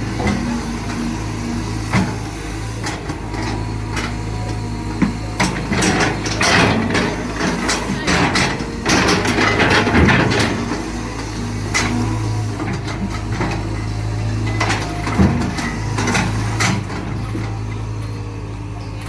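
Caterpillar 320 GC excavator working: its diesel engine runs steadily under repeated knocks and metal clanks from the machine and bucket, coming thickest in the middle and again near the end.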